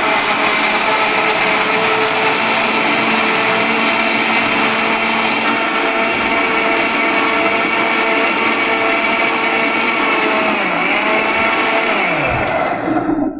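Prestige mixer grinder running steadily at speed, grinding tomatoes with ginger, cumin and chilli into a fine paste in its steel jar. About twelve seconds in the motor is switched off and winds down, falling in pitch.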